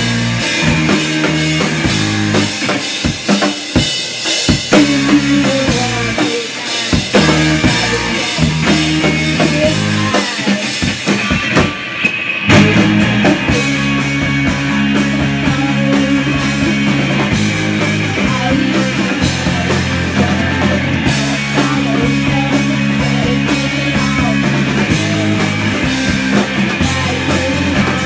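Live punk rock band playing drums, electric guitar and bass guitar. Drums lead at first, and the full band plays more densely from about twelve seconds in.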